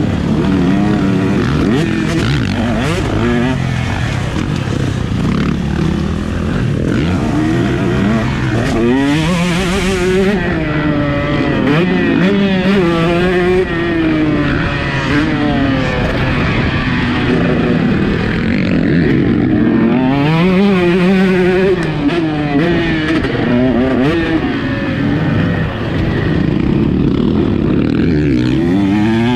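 Two-stroke KTM 150 SX motocross bike engine ridden hard on the track, revs repeatedly climbing and dropping as the throttle opens and closes through corners and shifts.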